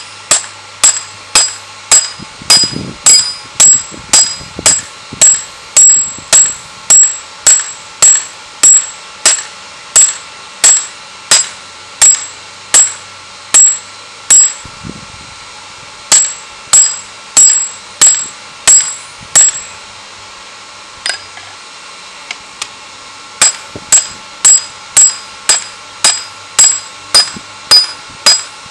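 Hand hammer striking a red-hot steel spearhead blade on a round block anvil, about two ringing blows a second. The hammering stops briefly about halfway through, then for a few seconds later on, before picking up again at the same pace.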